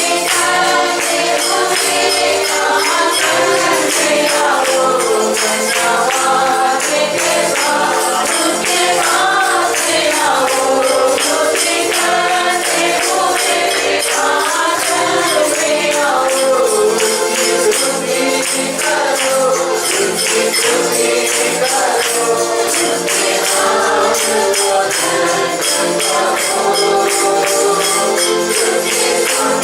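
A congregation singing a Hindi worship song together, with a tambourine jingling in a steady beat.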